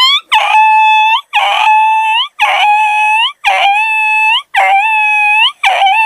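A person's vocal imitation of a dog: six yelping whines in a row, about one a second, each with a sharp start, held briefly and rising at the end.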